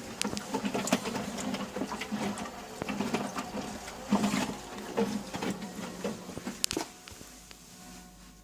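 Miele W941 washing machine running, with irregular clicking and knocking over a steady motor hum. The activity dies down about seven seconds in, leaving only a faint steady hum.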